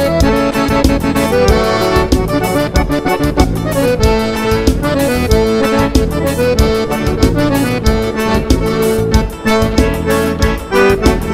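Instrumental break of gaúcho dance music: accordion playing the melody over a steady, quick drum beat.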